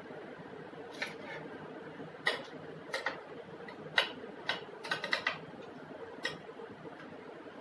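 Irregular sharp clicks and taps of kitchen utensils and cookware, about ten in all, over a steady low hum.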